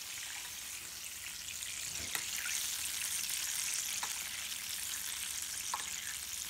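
Steady sizzling of hot fat and juices, with three light clinks of a metal basting spoon against the glass roasting dish about two seconds apart.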